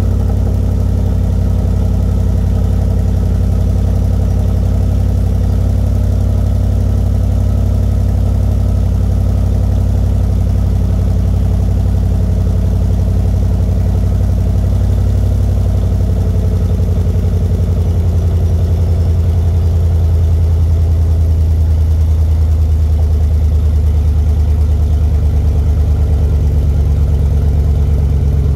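A 5.7 L Hemi V8 idling just after a cold start, through an exhaust with the muffler deleted but the resonators and catalytic converters still in place, giving a loud, steady deep rumble from the dual rear tailpipes. Its low note shifts slightly a little past halfway.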